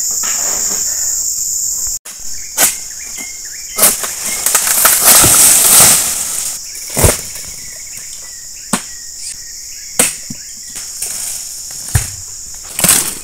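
Steady high insect chorus throughout. Over it comes a string of sharp knocks and thuds, with a loud rustling stretch around four to six seconds in: oil palm fronds being cut with a pole-mounted sickle (egrek) and crashing to the ground.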